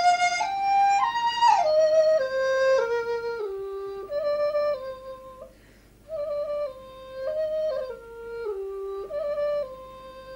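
Background music: a flute playing a slow melody that steps downward in two phrases, with a short break about halfway and a held note near the end.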